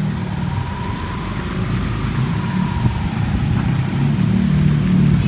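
Motor vehicle engine running with road noise, a steady low rumble that grows a little louder near the end.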